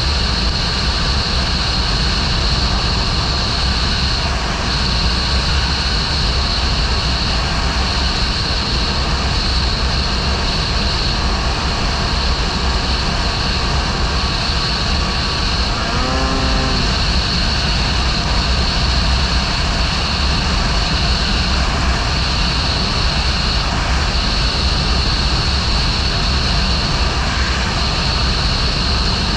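Snowmobile running steadily at cruising speed, a constant engine and track drone with a steady high whine. A brief pitched tone sounds about halfway through.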